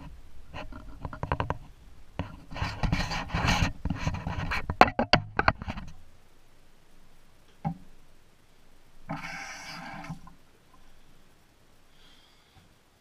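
Handling noise as a camera is moved and set down on a bathroom counter: rustling with a run of knocks and clicks. Later a single click and about a second of rough rustling noise.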